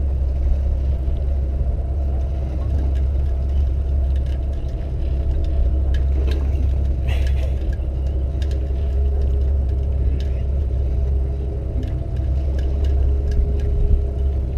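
Fishing boat's engine running with a steady low rumble and hum, with a few short clicks and knocks around the middle.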